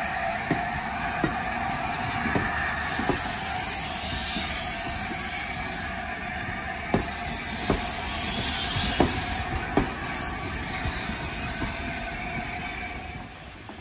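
Railway train running along the track with a steady rumbling noise and wheels clicking over rail joints, the clicks often coming in pairs just under a second apart. The noise drops off near the end.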